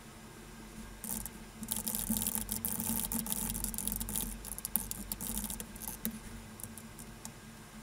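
Computer keyboard typing: a fast, dense run of key clicks starting about a second in, over a low steady hum.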